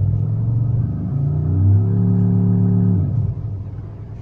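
Philips DSP-30u home-theater subwoofer playing a low test tone with a buzzy edge. Its pitch shifts in steps during the first second or two, then holds steady before cutting off about three seconds in, leaving a fainter hum.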